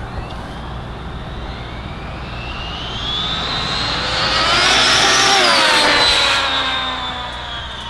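Arrma Felony 6S brushless 1/7-scale RC muscle car at full speed on a speed run: the high motor and drivetrain whine climbs in pitch as it comes on, is loudest as it passes about five seconds in, then drops in pitch and fades as it speeds away.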